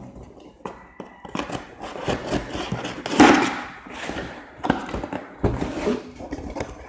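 A cardboard subscription box being opened and handled by hand: irregular knocks, scrapes and rustling, with the loudest rustle about three seconds in.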